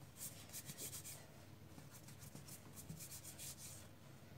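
Plastic dough scraper cutting through soft bread dough and scraping the stone countertop: faint, soft scratchy strokes, a run of them at the start and more a couple of seconds later.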